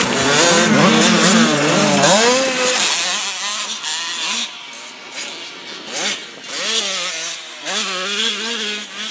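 Motocross dirt bike engines revving up and down, loudest in the first three seconds, then quieter with a few short revs.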